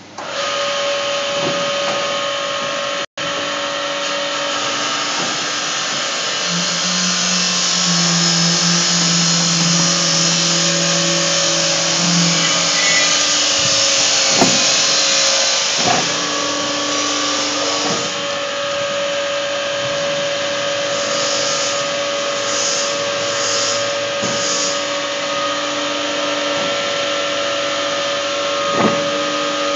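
Pipe bending machine running with a steady mechanical hum and whine; a deeper tone joins from about six to twelve seconds in, and a few metallic clanks come near the middle and near the end.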